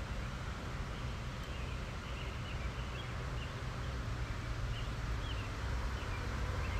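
Outdoor ambience: a steady low rumble of wind on the microphone, with short high bird chirps repeating every half second or so through the middle of the stretch.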